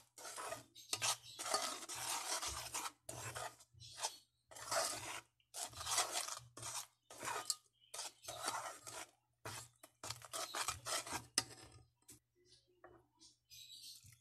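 Spoon stirring and scraping a wet flour, egg, sugar and water batter around a metal pot, in quick irregular strokes that stop about eleven seconds in.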